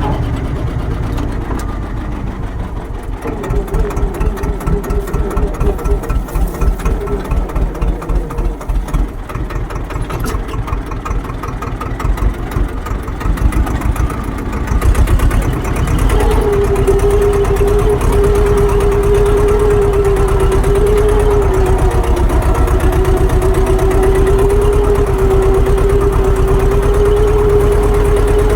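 Tractor engine running, throbbing unevenly for the first half, then settling about halfway into a steady drone with a held whine.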